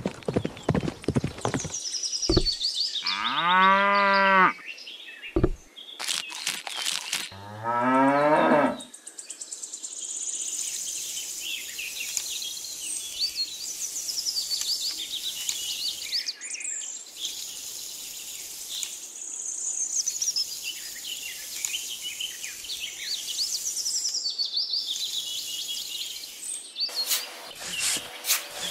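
Cattle mooing twice, two long calls a few seconds apart, followed by birds chirping steadily.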